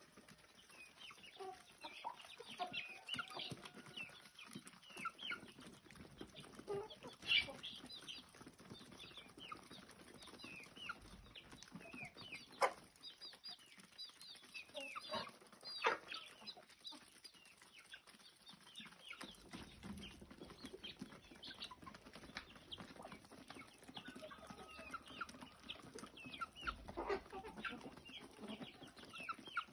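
Chickens clucking and calling, with many short, high calls and a few louder, sharp sounds.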